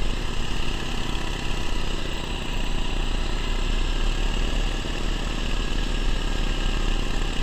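Small engine of a riding lawn mower fitted with ATV snow tracks, running steadily under load as it drives through deep snow.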